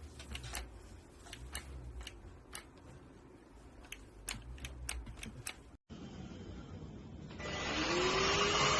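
A series of light clicks and taps, then near the end the K7 Pro cordless handheld vacuum's motor switches on and runs loud, its whine rising in pitch as it spins up.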